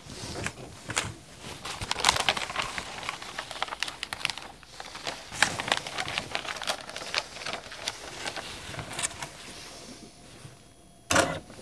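Irregular light clicks, taps and rustling as hands work at the front of a printer and move a sheet of paper, with a sharper knock just before the end.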